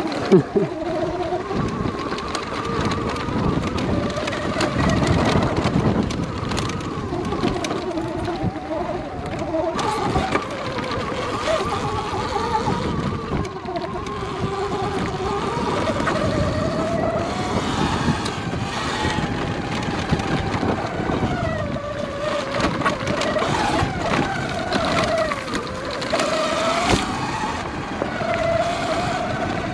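Sur Ron Light Bee X electric dirt bike ridden over a rough forest trail: the electric motor's whine rises and falls in pitch with the throttle, over a rumble and frequent knocks from the bike on the bumps. It is heard from a microphone inside the rider's helmet.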